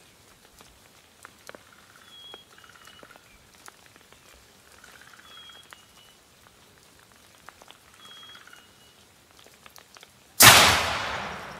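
Faint short chirps and soft calls every few seconds, then near the end a single loud shotgun shot whose sound dies away over about a second.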